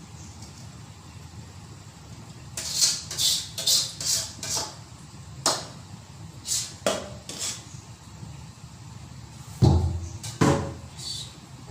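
Kitchen utensils knocking against cookware and the counter: a quick run of about five sharp clacks, a few single knocks, then two heavier thumps near the end.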